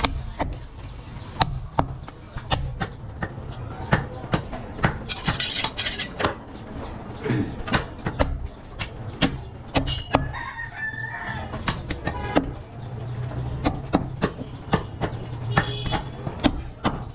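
A large butcher's knife chopping goat meat on a wooden chopping block: sharp, irregular knocks, at times several a second.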